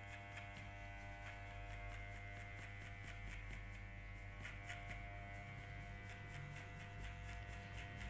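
Electric hair clippers running with a steady, even buzz as they cut short hair on the side of the head in a fade.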